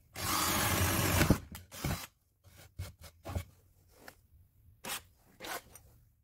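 Power drill with a spade bit boring a hole through a wooden board: a loud burst of drilling noise that stops about a second and a half in. A few short knocks and rustles follow.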